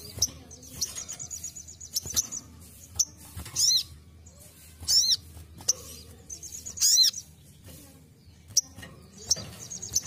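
A caged sunbird (sogon) calling with sharp high chips and short rapid trills near the start and end, plus a few loud arched whistled calls about four, five and seven seconds in.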